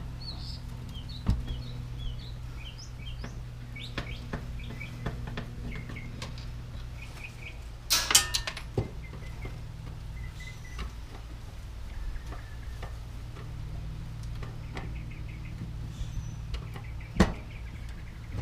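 Birds chirping over a steady low hum, with a short clatter about eight seconds in and a single knock near the end.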